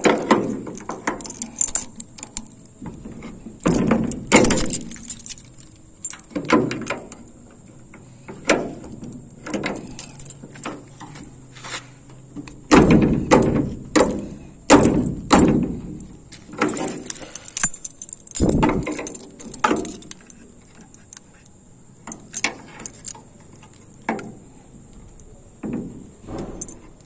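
Padlock and keys rattling and clanking against the steel hasp and sliding bolt of a metal gate, a long run of irregular metallic knocks as the bolt is worked by hand. The bolt is stuck and will not slide open.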